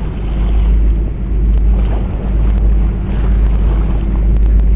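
Wind buffeting the microphone with a heavy low rumble, over the low steady drone of a passing sightseeing boat's engine.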